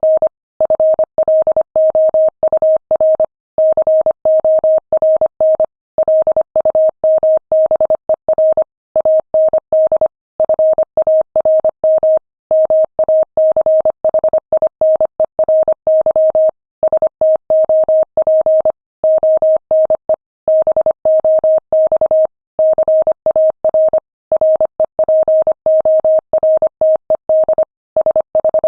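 Morse code sent at 25 words per minute: a single steady mid-pitched beep keyed rapidly on and off in short and long elements, with brief pauses between letters and words.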